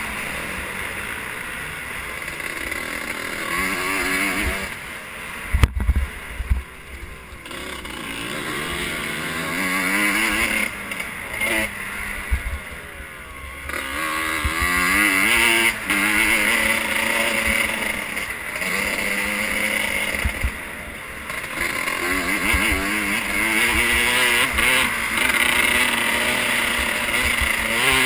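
Motocross bike engine revving up and dropping back again and again as the rider accelerates and shifts along a dirt track, heard from the rider's camera with low rumble on the microphone. A few sharp knocks come about six seconds in.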